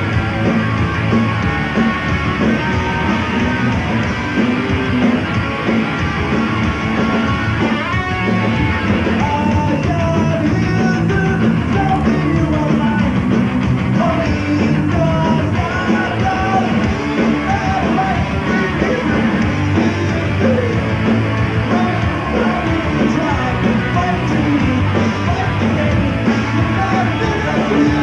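Punk rock band playing live: loud, driving electric guitars, bass and drums, with a sung lead vocal coming in about ten seconds in.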